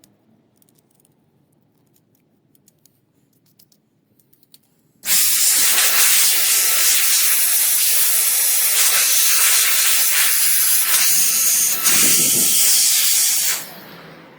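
Keyboard blower blasting air into a typewriter's works: a loud, even hiss that starts suddenly about five seconds in and cuts off near the end, with faint light clicks before it.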